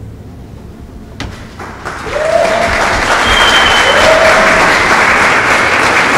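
Audience applause after an orchestral piece ends: after a quiet moment as the music dies away, clapping breaks out about two seconds in and holds steady.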